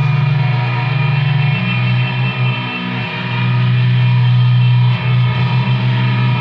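Distorted guitar droning on a sustained low note with a thick buzz of overtones, dipping briefly about three and five seconds in.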